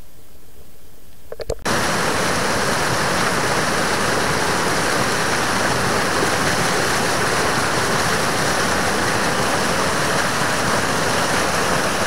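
A small waterfall splashing over boulders, a steady loud rush of water. It starts abruptly about a second and a half in, after a quieter, muffled stretch with a few faint clicks, heard with the camera underwater.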